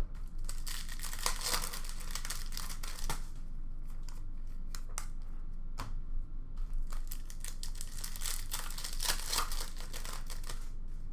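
Hockey card pack wrappers being torn open and crinkled by hand, with cards handled and shuffled: an irregular run of crackly rustling, busiest about a second in and again near the end.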